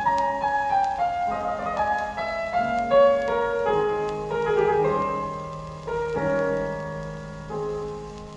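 Piano music played back through Dynaco A-35 loudspeakers fitted with newly replaced crossover-network parts, a melody of held notes stepping mostly downward over chords.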